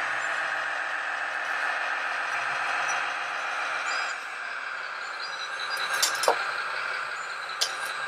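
Radio-controlled model wheel loader, a Graupner Liebherr 574, driving and turning, with a steady whir from its motors and gearing. A few sharp clicks come about three quarters of the way through.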